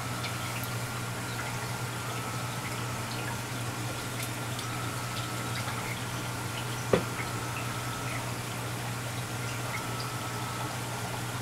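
Reef aquarium water running: a steady trickle with small drips and splashes over a low, steady hum. A single sharp click about seven seconds in is the loudest sound.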